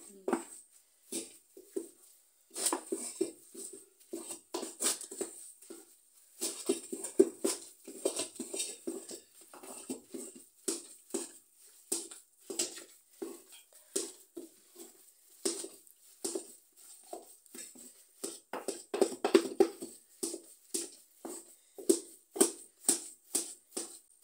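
A wooden spoon stirring thick greens with peanut butter in an aluminium saucepan, knocking and scraping against the pot in short, uneven strokes about twice a second.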